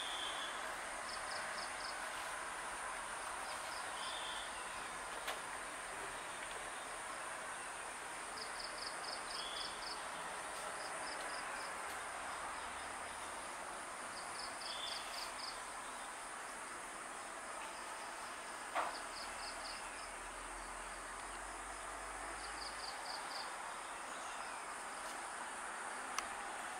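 Outdoor daytime ambience of insects: a steady high hum, with a short rapid high trill repeating every second or two and a few short high calls. A sharp click about two-thirds of the way through is the loudest moment.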